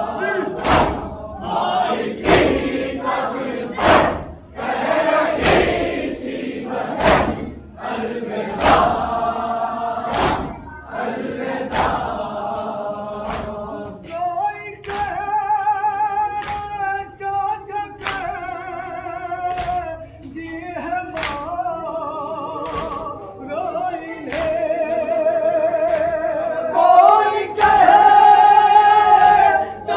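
A chorus of men chanting a noha, a Shia lament, in unison, with rhythmic chest-beating (matam) thumps about every 0.8 seconds. About halfway through, the thumps fade and the voices settle into long, held, wavering notes.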